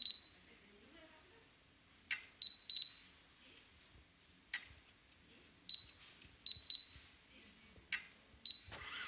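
Topcon MS05 total station giving short, high, single-pitched beeps, singly and in quick pairs. Three sharp clicks, a few seconds apart, each come just before a group of beeps.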